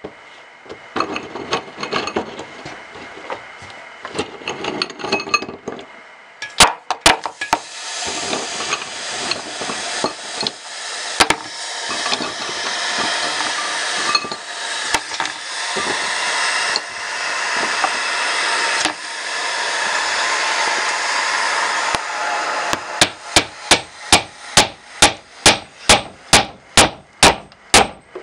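Hammer blows on a block of wood held against the sleeves of a Triumph T120 twin-cylinder barrel, about two strikes a second through the last five seconds, trying to drive the worn sleeves out. Before that, a long crackling hiss with scattered clicks as ice goes into the heated cylinder bores.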